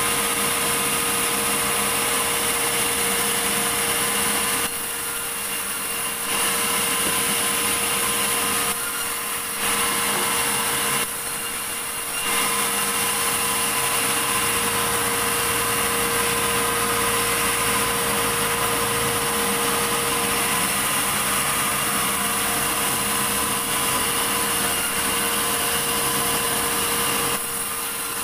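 Sawmill saw running steadily, a constant machine hum with a steady high whine. Its level drops abruptly for a second or so three times in the first half and once near the end.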